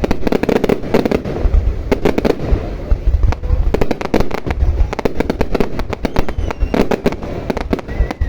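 Aerial fireworks display going off continuously: rapid sharp cracks, several a second, overlapping with deep booms.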